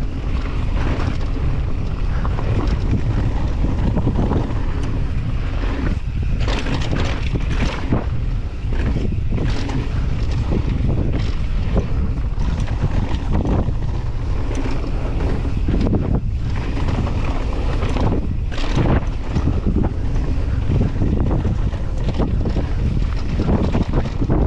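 Wind buffeting the microphone of a camera worn by a rider descending a downhill mountain bike trail, a steady low rumble broken by frequent irregular knocks and rattles from the bike over rough ground.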